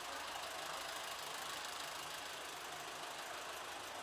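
Jeepney's Isuzu 4DR5 four-cylinder diesel engine idling steadily.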